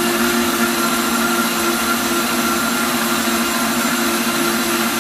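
Vitamix blender running steadily, blending a thick basil pesto, its motor holding one even pitch.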